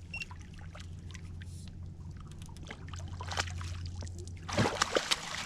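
Catfish being fought beside a boat: scattered clicks from the fishing reel and line, water splashing, and a louder splash of the fish at the surface near the end, over a steady low hum.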